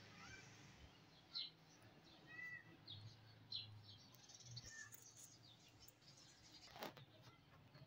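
Faint, scattered chirps of budgerigars in the cage, short high calls coming every second or so, with one sharp click near the end.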